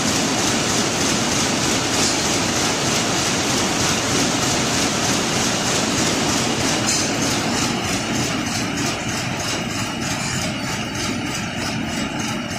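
Warp knitting machine running at speed while knitting balcony netting: a loud, dense, steady mechanical clatter. About halfway through, a regular beat of roughly three strokes a second stands out.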